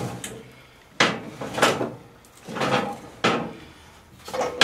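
Steel cutting deck of a riding mower being shifted and slid out from under the tractor: a series of about five scrapes and knocks as it drags and bumps against the hanger arms.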